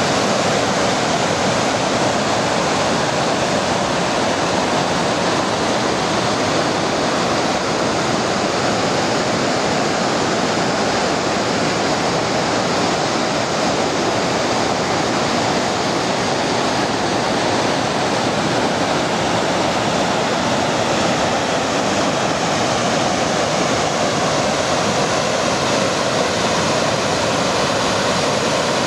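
Waterfall and the rapids below it rushing, a steady, even roar of falling and churning water with no breaks.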